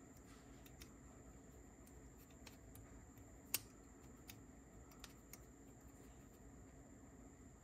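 Near silence: faint scattered clicks and ticks of fingers handling the small metal and plastic parts of a Sony TCM-200 cassette recorder's tape transport, with one sharper click about three and a half seconds in, over a faint steady hum.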